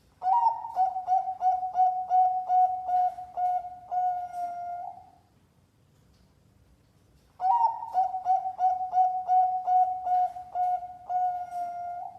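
Zebra dove (perkutut) singing a competition-class song. There are two cooing phrases, each a quick run of repeated notes ending in a longer held note, and the second starts about seven seconds in.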